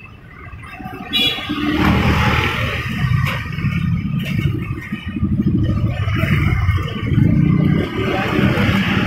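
A motor vehicle's engine running close by, a loud, steady rumble that comes in about a second in.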